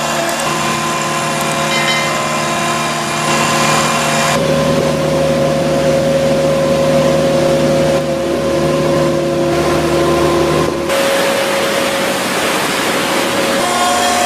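Heavy machinery engines running steadily, with a whining tone over the engine noise; the sound changes abruptly twice, about four and eleven seconds in.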